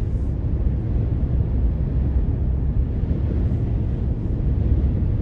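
Steady low rumble of a car in motion, heard from inside the cabin: road and tyre noise.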